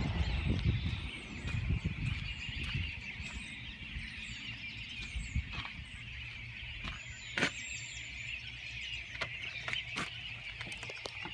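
Birds chirping, with short rising and falling calls over a steady, dense high-pitched chorus and scattered sharp clicks. A low rumble fades out after the first few seconds.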